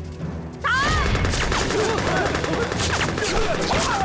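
A battle breaks out suddenly about a second in: a volley of rifle gunfire from many guns, with men yelling over it.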